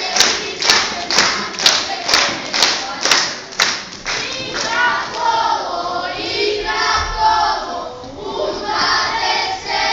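A group of young folk dancers keeps time with sharp beats about twice a second. About four seconds in, they break into a folk song sung by many voices together, heard as a choir.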